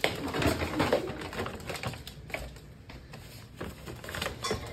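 Shiba Inu nosing at a plastic pet-food bag and licking a lid: crinkling plastic and wet licking in an irregular run of clicks and crackles.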